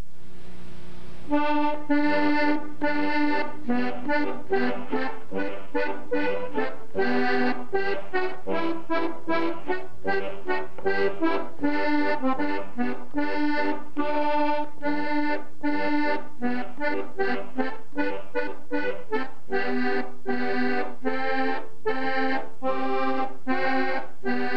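Accordion music: a tune played in short, evenly paced notes and chords. It starts about a second in, after a brief low hum.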